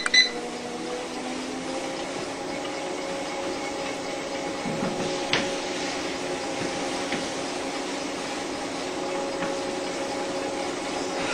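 Electric treadmill running at a slow walking speed: a steady motor hum and belt whir, with a few faint clicks.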